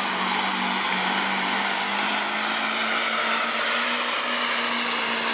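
Chevrolet Silverado's Duramax turbodiesel V8 at full throttle under heavy load, dragging a pulling sled: a loud, steady drone that holds its pitch.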